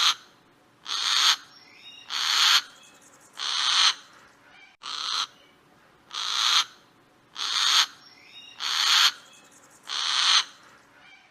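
An owl giving a steady series of rasping, hissing screeches, about one every 1.2 seconds. The sound stops abruptly near the end.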